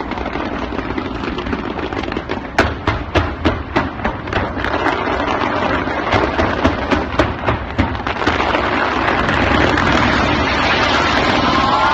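New Year fireworks: a rapid run of sharp bangs, several a second, from about two and a half seconds in to about eight seconds, over a steady noisy rumble. The rumble grows denser and louder in the last few seconds.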